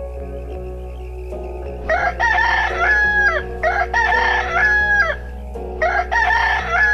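Rooster crowing three times, each crow a long cock-a-doodle-doo of about a second and a half that drops in pitch at the end, over soft background music.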